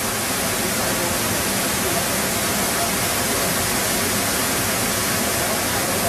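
Waterfall: rushing water making a steady, even noise with no breaks.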